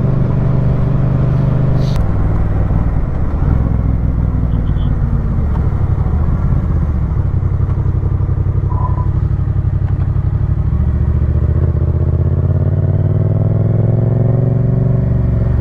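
Motorcycle engine running steadily while riding at road speed, with wind and road noise. The engine note shifts about two seconds in and climbs gently near the end.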